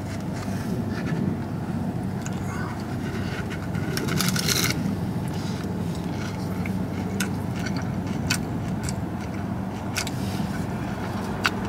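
Crunchy red hard-shell taco (Taco Bell Volcano taco) being bitten and chewed: scattered sharp crunches, the densest about four seconds in, over a steady low hum inside the car.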